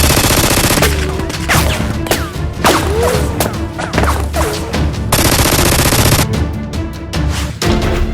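Rapid bursts of gunfire sound effects, dubbed over a steady background music track.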